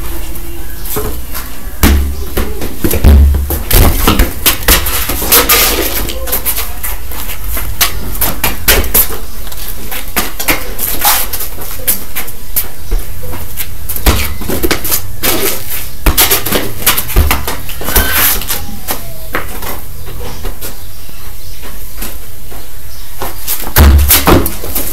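Repeated thuds and knocks of a soccer ball being kicked and bouncing on a concrete floor and against a wall, over a steady low rumble, with heavier thumps a couple of seconds in and near the end.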